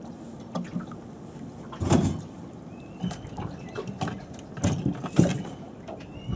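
Irregular knocks and clatter of gear on a small fishing boat drifting on the water. The two loudest thumps come about two seconds in and a little after five seconds, with a few faint short rising chirps between them.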